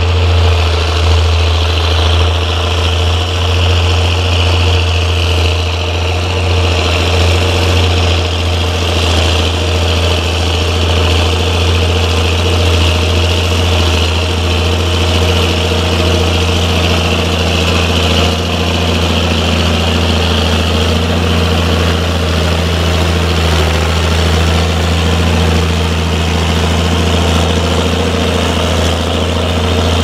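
Ford TW25 tractor's six-cylinder diesel engine running steadily under load, pulling a mounted plough through heavy, wet ground.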